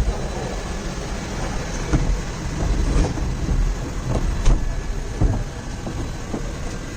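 Aerial cable car cabin running along its cable, heard from inside: a steady low rumble with several sharp knocks and clunks.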